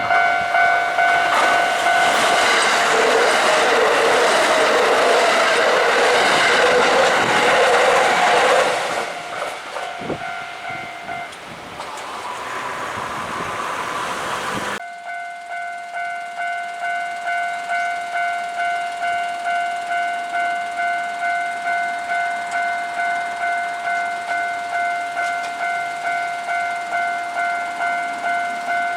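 An electric commuter train runs over a railway level crossing, rumbling with wheel clatter for about the first nine seconds, while the crossing's warning bell rings over it in a steady repeating ding. The bell stops a little after the train has gone, then starts again suddenly about halfway through and keeps ringing.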